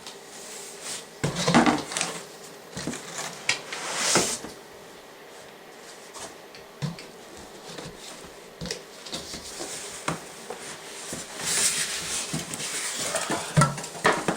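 A large cardboard shipping box and its packaging being handled while a digital piano is unpacked: irregular rustles, scrapes and knocks. Louder clusters come about a second and a half in, around four seconds, and from about eleven to fourteen seconds.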